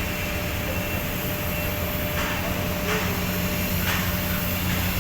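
TIG welding on a stainless steel flange: a steady hiss over an electrical hum from the welding setup, with a few faint taps in the second half.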